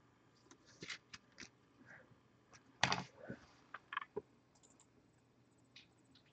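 Faint plastic clicks and rustles of a trading card being handled, slipped into a penny sleeve and rigid top-loader and set down on a playmat, with the sharpest click about three seconds in.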